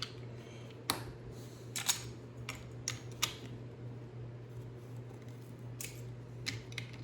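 Plastic Lego bricks clicking as they are handled and pressed together: a string of short sharp clicks, several in the first few seconds and a few more near the end, over a steady low hum.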